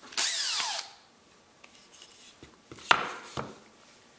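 Makita 18V cordless drill given a short burst, its motor pitch sliding down as it spins to a stop. About two and a half seconds later come two sharp knocks, half a second apart.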